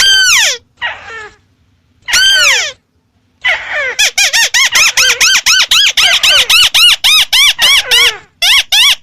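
White-browed crake calling: two drawn-out falling notes, then from about three and a half seconds in a fast run of short rising-and-falling notes, about four or five a second, with a brief break near the end.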